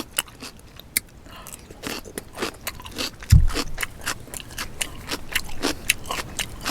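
Crawfish being peeled and eaten close to the microphone: a dense run of small shell clicks, crackles and chewing sounds, with one dull thump a little over three seconds in.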